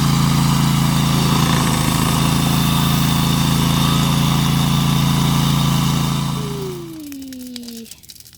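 Engine running steadily with a deep, even hum, then shut off about six and a half seconds in, its pitch falling as it winds down to a stop.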